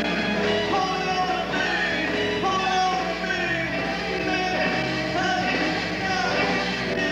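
Male lead vocalist singing into a microphone with a live band playing behind him.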